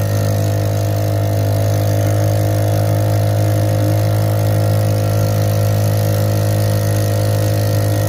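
Matsumoto 5 hp four-stroke outboard motor running steadily at an even, unchanging pitch.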